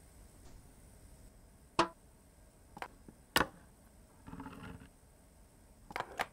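Sharp metal clicks and knocks, then a short gritty rasp about four seconds in as a hand-held can opener grinds into the can's lid. Near the end the opener is set down on the worktop with two quick clacks.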